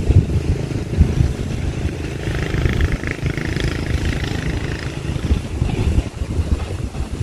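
Travel noise from a moving vehicle on the road: wind buffeting the microphone over a running engine, a continuous choppy rumble.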